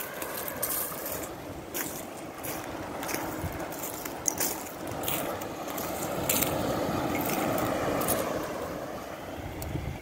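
Footsteps crunching over a beach covered in broken seashells, irregular sharp crunches over a steady rush of wind and surf. The rush swells from about five seconds in and eases off near the end.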